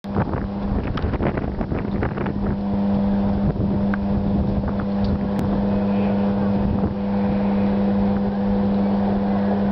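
Electrical substation hum: a loud, steady drone on one low pitch with a fainter higher tone above it, unbroken throughout. A scatter of sharp clicks sounds over it in the first two seconds or so.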